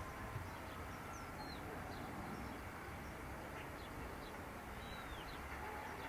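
Small birds chirping faintly and sporadically over a steady, low, distant rumble.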